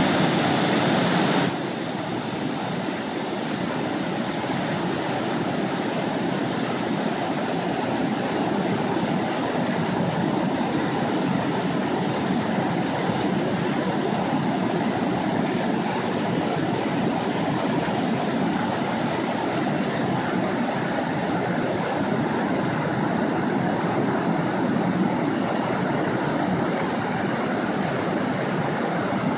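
Steady rushing of whitewater rapids and a waterfall pouring over rocks, a little louder for the first second and a half, then even.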